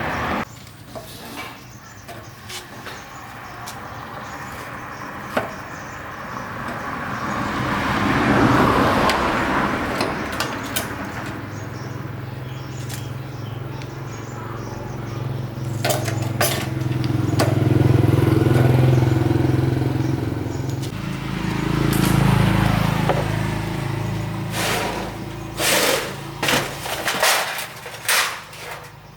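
Motor vehicle engine sound that swells and fades several times, as vehicles pass by, followed near the end by a quick run of sharp knocks.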